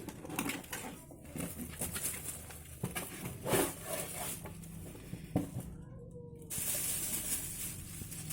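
Cardboard box and plastic packaging of a TV antenna being opened and handled: irregular rustling with knocks and clicks, and a louder plastic rustle near the end.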